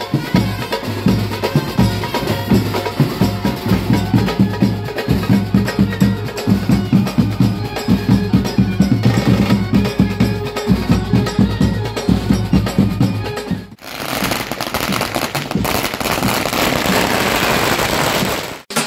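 Street brass band playing dance music with a heavy drum beat and held horn notes. About fourteen seconds in it cuts to a string of firecrackers going off in rapid crackling bursts for about five seconds.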